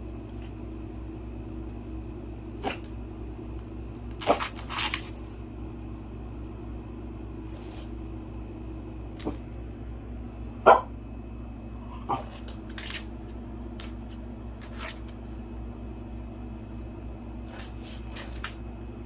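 French bulldog making a few short, sharp sounds, the loudest a little past halfway, over a steady low hum.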